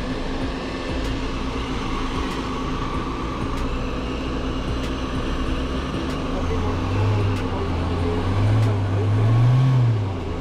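Off-road SUV engines working under load in deep sand: a steady low engine drone, then from about six seconds in an engine revs hard, its pitch rising and falling and peaking near the end before it drops off.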